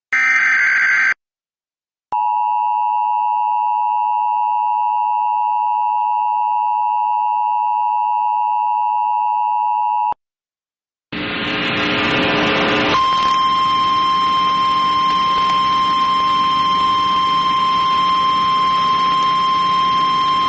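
A one-second burst of EAS digital header data, then the Emergency Alert System two-tone attention signal held steady for about eight seconds. After a one-second gap comes radio static, with a steady single-tone weather radio warning alarm starting about two seconds later.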